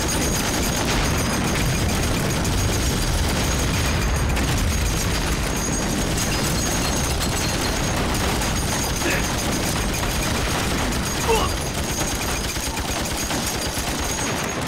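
Dense battle gunfire: rifles and machine guns firing in a rapid, continuous crackle, with one louder bang about eleven seconds in.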